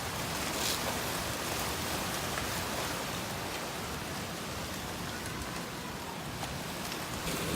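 Steady wind blowing in gusts, with no rain falling.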